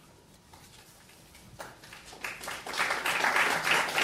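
Audience applauding: a short hush, then clapping starts about a second and a half in and grows louder into steady applause.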